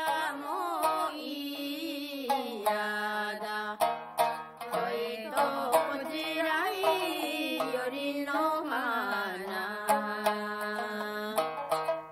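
A single voice sings a slow, ornamented Japanese folk melody that slides between notes, over sparse plucked shamisen notes.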